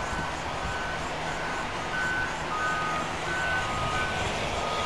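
Back-up alarms of construction trucks and earthmoving machines beeping, two alarms at slightly different pitches overlapping. Under them is a steady noise of engines and traffic, with a low engine hum in the first part.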